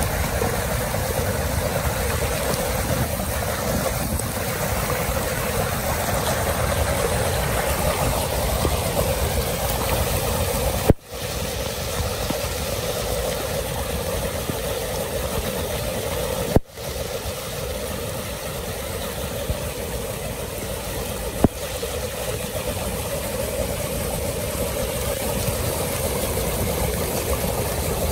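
Floodwater churning and rushing down into a street drain: a steady, even rush of water. It cuts out briefly twice, about 11 and 17 seconds in.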